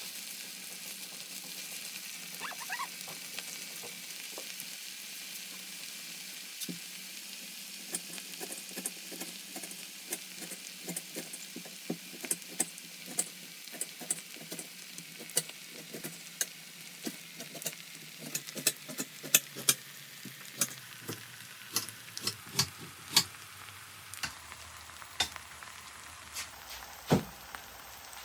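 Onions with ground pepper, ginger and garlic frying in olive oil in a saucepan: a steady sizzle with sharp crackles and pops that grow frequent after about eight seconds.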